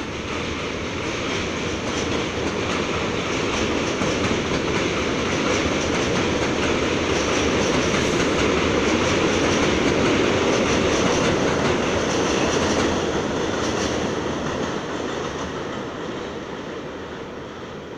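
R32 subway train running past on an elevated steel track, its wheels rumbling and clattering. The sound builds to its loudest about halfway through, then fades as the train moves off.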